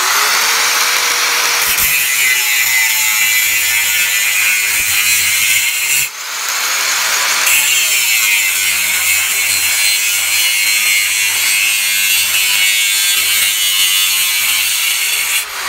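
Makita GA6020 angle grinder with an abrasive cut-off disc cutting through a rusty steel bar: a loud, steady grinding screech that dips briefly about six seconds in.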